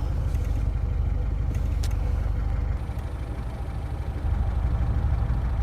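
Car engine and road rumble heard from inside the cabin while driving. The low drone eases off briefly about three seconds in, then picks up again.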